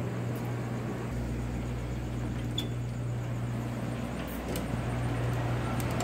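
A steady low mechanical hum over general background noise, with a few faint clicks.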